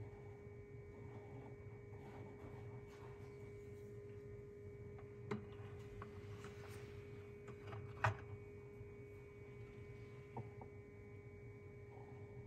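Steady electrical hum from a tabletop egg incubator, with a few light taps of eggs and plastic being handled, the sharpest about eight seconds in.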